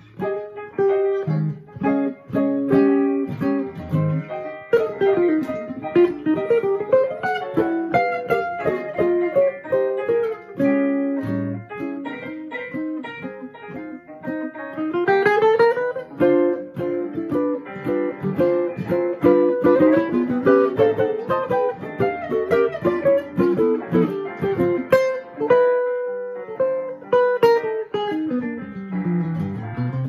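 Red archtop electric guitar playing jazz: quick picked single-note lines with fast scale runs, one climbing about halfway through and one dipping and climbing again near the end.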